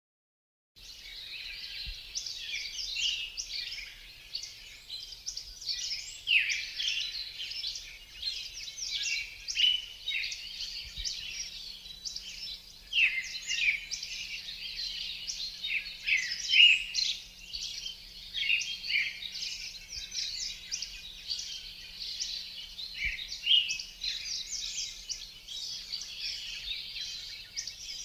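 A chorus of many birds chirping and singing at once, with short overlapping calls throughout. It starts suddenly about a second in.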